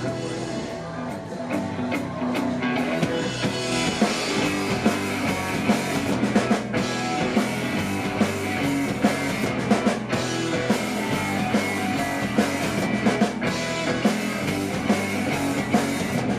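Rock music from a band: a drum kit beating steadily under guitar.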